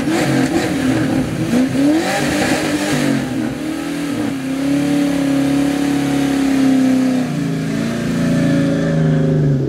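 Car engine being revved: quick blips of the throttle rising and falling, then held at a steady raised speed before settling lower near the end.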